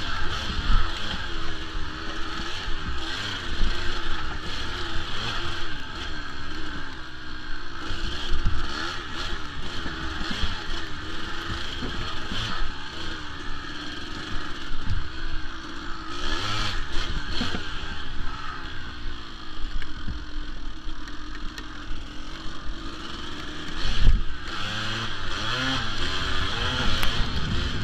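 Kawasaki KDX200's two-stroke single-cylinder engine revving up and down under changing throttle as the dirt bike is ridden over rough trail, with knocks and rattles from the bike over bumps, the loudest about 24 seconds in.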